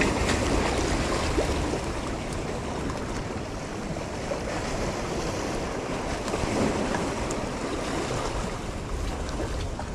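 Rough sea surf washing and splashing against the boulders of a rock breakwater, steady throughout, with wind rumbling on the microphone.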